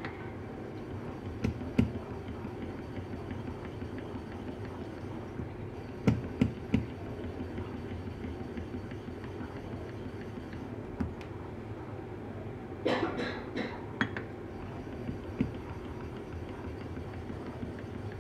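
A steel blade being honed on a wet waterstone: a steady scraping hiss of metal rubbing on the stone, broken by several sharp knocks and a short rattle of clicks about 13 seconds in as the blade is set down, shifted and lifted.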